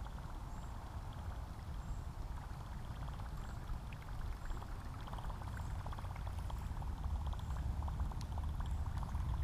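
Water lapping and trickling against a kayak's hull in many small irregular ticks, a little louder after about five seconds, over a low steady rumble.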